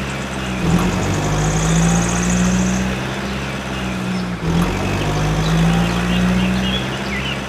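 A steady mechanical hum, like a motor or engine running, that dips briefly twice. Birds chirp now and then.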